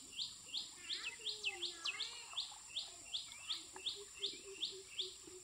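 A bird calling in a rapid, regular series of short, sharply rising chirps, about three a second, over a steady high-pitched hiss.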